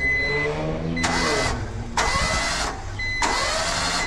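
Honda Acty's three-cylinder engine turned over on the starter in three short bursts with its spark plugs removed, puffing air and carburetor cleaner out of the open plug holes to clear oil from the cylinders. A high electronic beep sounds on and off.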